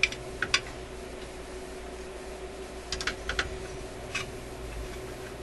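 Light metallic clicks and taps of a small hand tool against a screw and metal shield can on a radio chassis, in a few scattered groups, over a steady faint hum.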